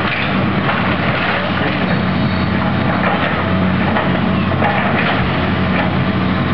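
Hitachi tracked excavator's diesel engine running steadily under load, with wood splintering and debris crunching as its bucket works through the wreckage of a wood-framed house.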